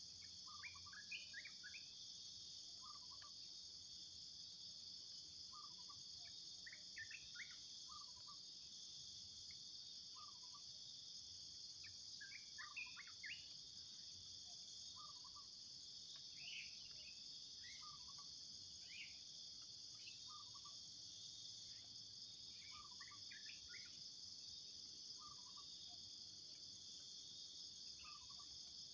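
Faint, steady insect chorus, a high continuous drone, with a bird giving short repeated calls every couple of seconds and other scattered chirps.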